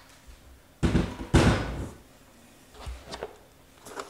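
A heavy 12-inch car subwoofer being handled and set down on a bench: two loud thumps about a second in, then a few lighter knocks.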